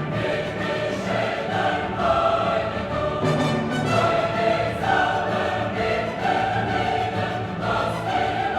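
Background music: a choir singing with an orchestra, in a classical choral piece.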